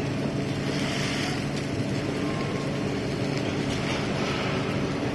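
Gas brazing torch flame hissing steadily against the furnace's copper coil, over a steady low machinery hum.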